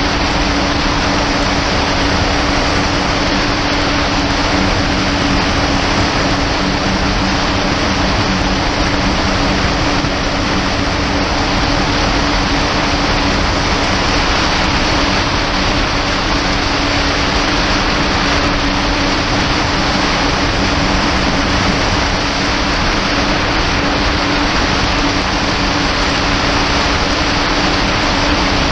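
Kawasaki Ultra 300X jet ski's supercharged four-cylinder engine running steadily at cruising speed, its hum holding an even pitch under a loud rush of wind and water.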